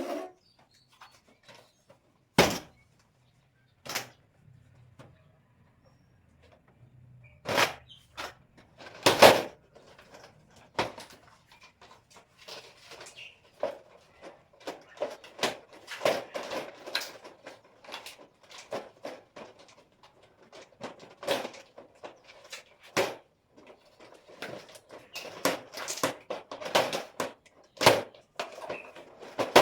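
Knocks and clatter of shoe rack parts being handled and fitted together: a few separate knocks in the first ten seconds, then a busier run of clicks and rattles.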